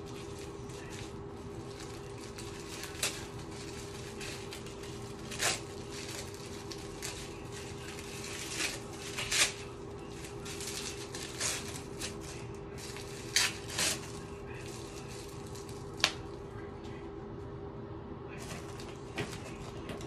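Plastic packaging crinkling, rustling and tapping as it is handled and unwrapped, in short irregular crackles over a steady hum.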